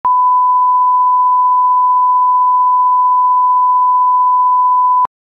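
Steady line-up test tone at one unchanging pitch, the reference tone played with SMPTE colour bars, cutting off suddenly about five seconds in.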